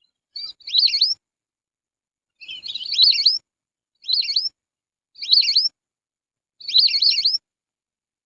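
Whistling duck (belibis) giving its whistled call: five short calls, each a quick run of two or three rising whistles, about a second apart.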